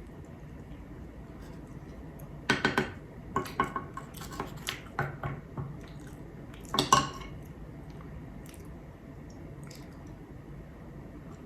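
Eating utensil clinking and scraping against a dish in several short clusters of clicks, loudest about two and a half seconds in and again near seven seconds.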